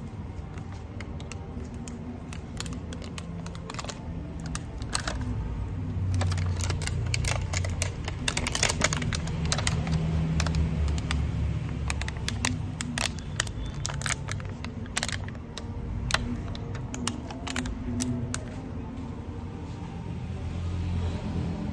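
Clear plastic clamshell food boxes clicking and crackling as they are opened and handled, in quick irregular clusters, over a steady low rumble.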